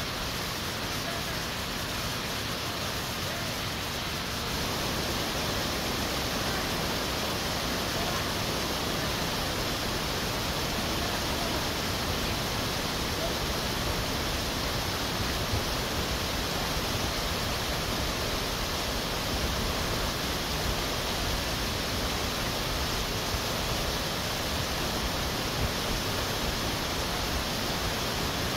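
Steady rush of a mountain stream cascading over boulders, a little louder from about four seconds in.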